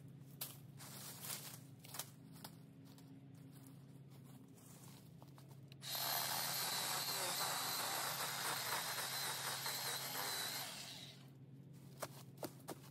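A power saw runs at a steady pitch with a thin whine for about five seconds, starting about six seconds in, while trail-blocking logs are being cut. Scattered clicks and knocks from handling come before and after it.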